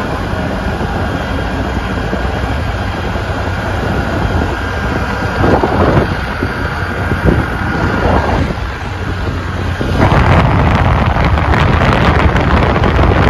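A road vehicle's engine running steadily while driving, with wind rushing over the microphone, growing louder about ten seconds in.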